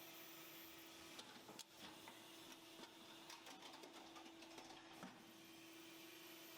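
Faint factory food-processing machinery running: a steady low hum with scattered clicks and rattles.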